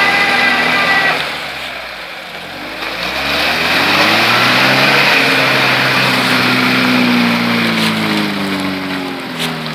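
Lada Niva's engine revving as it drives through deep mud: the revs dip about a second in, then climb and hold high, easing off near the end.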